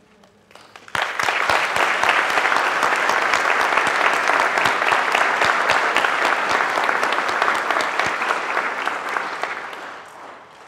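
Audience applauding: the clapping starts suddenly about a second in, holds steady, and dies away near the end.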